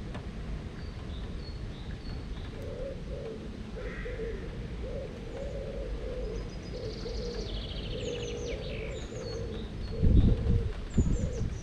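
Birds calling from the trees: a low, repeated call of short notes goes on steadily, and high chirps join about halfway through. A low background rumble runs underneath, and two loud low bumps come near the end.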